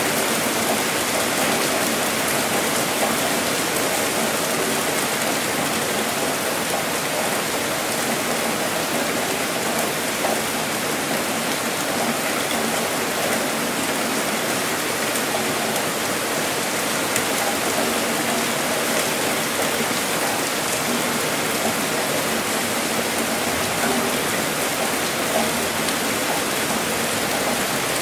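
Heavy rain falling steadily, an even unbroken wash of drops with no let-up or thunder.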